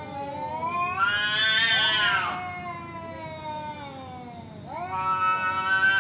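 Tomcats caterwauling at each other in a fight challenge: drawn-out, wavering yowls over a lower continuous moan. A loud yowl rises about a second in, and another swells near the end.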